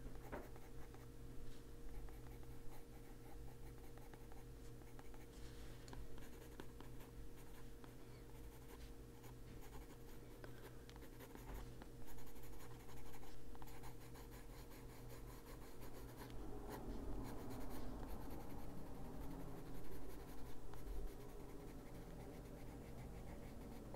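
Pencil scratching on paper in many short strokes, with a steady low hum underneath.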